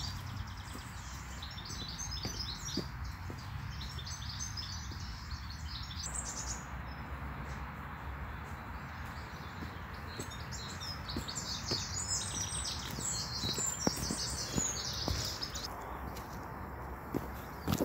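Songbirds singing in rapid high phrases, pausing for a few seconds in the middle, over a low steady background rumble. A boot step crunches on gravel near the end.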